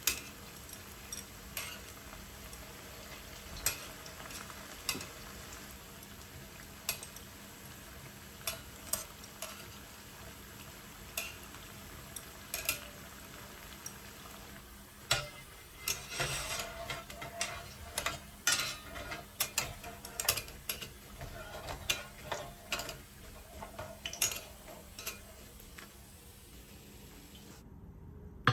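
Floured potato strings frying in hot oil with a steady sizzle, and scattered clicks and scrapes of a utensil stirring them against the pan that grow busier from about halfway.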